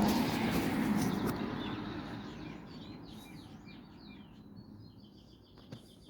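Small birds chirping in quick, short calls. A loud rushing noise at the start fades away over the first two to three seconds.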